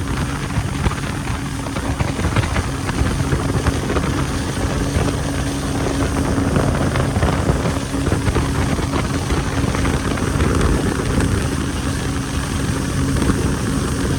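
Yamaha jet ski engine running hard at a steady cruising speed: a steady, unchanging drone over a dense rush of noise.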